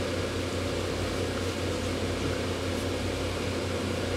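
Steady drone of the electric blower fans that keep airblown inflatables inflated, running continuously.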